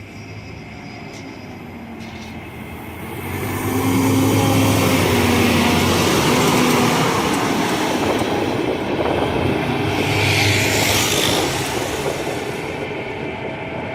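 Scania K270UB city bus driving past, its engine getting loud about three seconds in and easing off afterwards. A short hiss comes near the ten-second mark.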